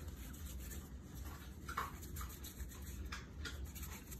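Hands rolling a rope of bread dough back and forth on a floured board: soft, irregular rubbing and brushing strokes over a faint low hum.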